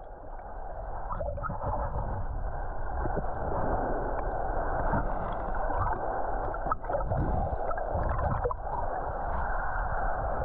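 Steady, muffled wash of small waves and moving water at the shoreline, dull and without highs, with a few faint clicks.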